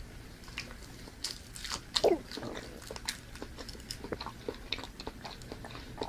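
A person chewing and eating, with scattered wet mouth clicks and smacks, and one short falling-pitch sound about two seconds in.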